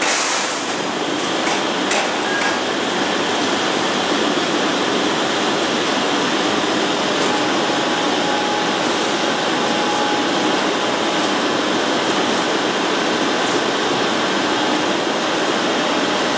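Steady, loud industrial noise of a steel mill: a dense metallic clatter and hiss of machinery, with a few sharp clicks in the first seconds.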